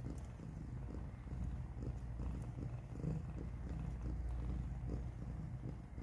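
Calico mother cat purring steadily and low while her kittens nurse.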